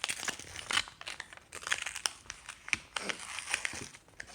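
A foil Pokémon card packet being crinkled and torn open by hand, with irregular sharp crackles of the wrapper.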